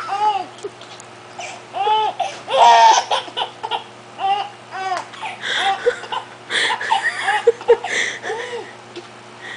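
Baby laughing in repeated bursts of short rising-and-falling squeals, loudest about three seconds in.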